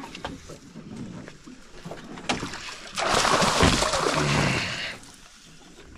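A hooked catfish on a limb line thrashing at the water's surface: loud splashing that starts suddenly about three seconds in and lasts about two seconds, as the fish fights to get off the hook.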